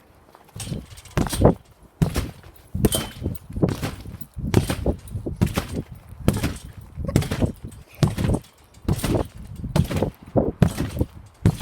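Someone bouncing on a trampoline, a rhythmic thump-and-rattle of the mat and springs on each bounce, a little more than one bounce a second. It starts about half a second in and keeps an even pace.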